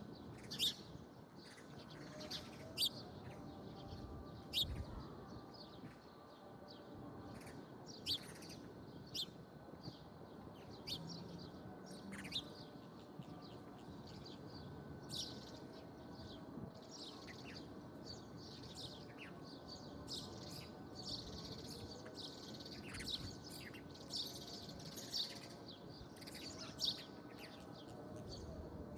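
Small birds chirping: short, high calls scattered irregularly throughout, a few sharper chirps standing out above a faint steady background.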